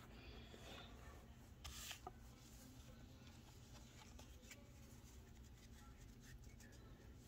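Near silence with faint rustling and light clicks of trading cards being handled, one slightly louder rustle about two seconds in.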